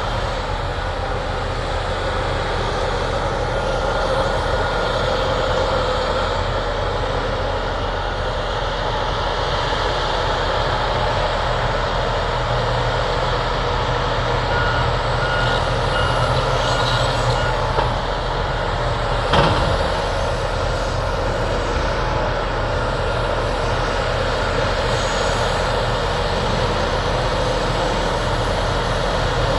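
Diesel engines of heavy earthmoving machines (excavator, dump truck, bulldozer) running steadily at close range, with a single sharp clank about two-thirds of the way through.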